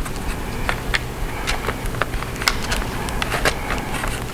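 Light, irregular clicks and taps of small plastic and metal parts being handled as the battery cable is unplugged inside an opened laptop, over a steady low hum.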